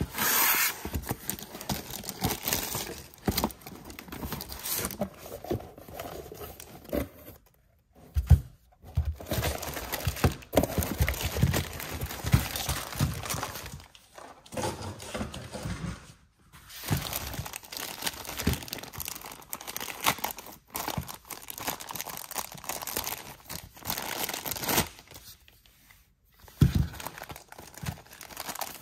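Clear plastic bags crinkling and rustling as bagged toy parts are handled, in irregular bursts with brief pauses, and a few light knocks.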